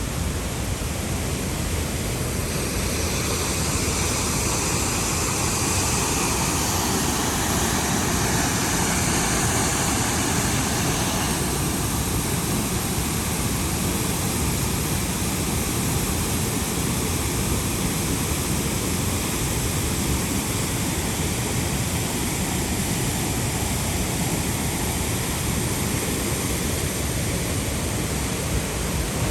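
Dray Nur waterfall's steady rushing roar of falling water, with a brighter hiss over it from about two to eleven seconds in.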